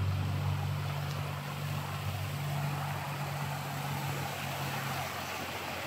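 Motor vehicle engine running steadily with a low hum over a rushing noise, fading away about five seconds in.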